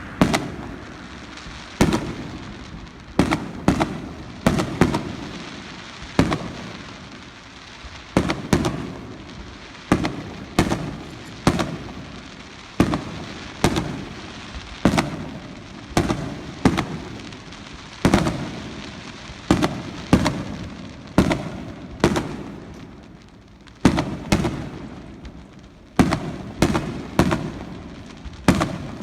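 Aerial fireworks shells bursting one after another, a sharp bang every second or so, often two or three in quick succession, each followed by a rolling echo.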